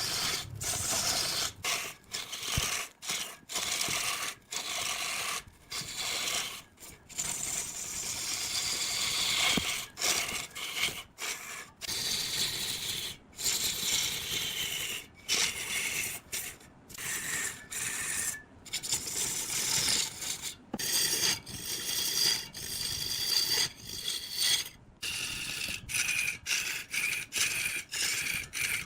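A hand tool scraping and rasping across wood in repeated strokes, each broken off by a short pause.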